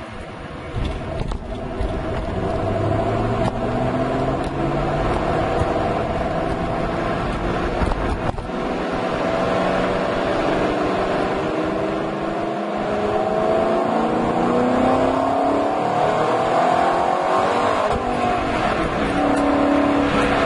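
Ford Mustang Shelby GT500's supercharged V8 exhaust on the road, picked up by a microphone in the trunk. The engine note rises and falls in pitch with the throttle, with a brief dip about eight seconds in.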